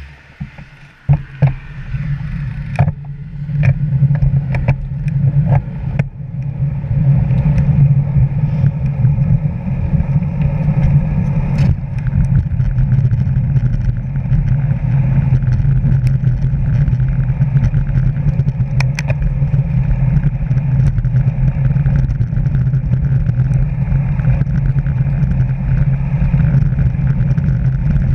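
Steady low rumble of wind and tyre noise from a road bicycle ridden at speed, picked up by a GoPro camera on the bike. It builds over the first several seconds as the bike gets up to speed, with scattered sharp clicks and knocks early on.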